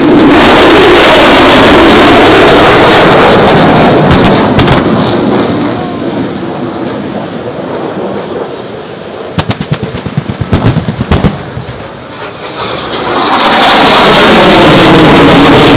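F-35A jet passing low and very loud, then fading. A rapid string of about seven sharp pyrotechnic blasts simulates a weapons strike, and loud jet noise builds again near the end.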